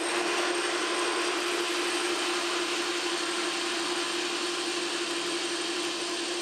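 Metal lathe running with its tool taking a facing cut across the end of 2-inch bar stock, a pass to check that the work is centred in the steady rest. It gives a steady hiss of cutting over an even mid-pitched hum.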